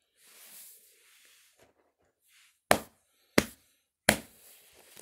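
Toy wrestling figures handled with a soft rustle, then struck down three times in sharp, evenly spaced knocks about two-thirds of a second apart: a pinfall three-count ending the match.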